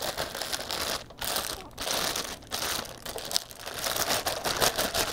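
Plastic bag crinkling and rustling in irregular handfuls as it is opened and pulled off the printer's input hopper, with a few brief pauses.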